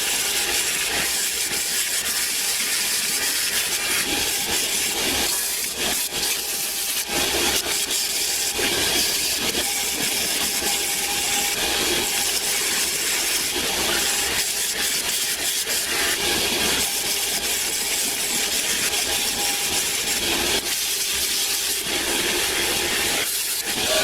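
Redgum wooden knife handle being shaped by hand, a steady run of abrasive strokes on the wood as it is worked flush with the guard.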